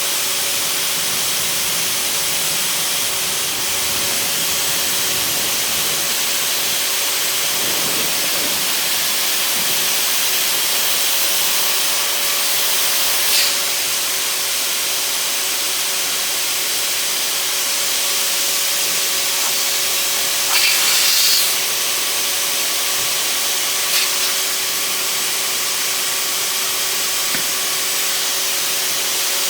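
Bravo 2000 electric inflation pump running steadily, pushing air through two hoses into an inflatable yacht slide's chambers: a steady rushing hiss over a steady motor hum. A few short, louder bursts of hiss break in about 13, 21 and 24 seconds in.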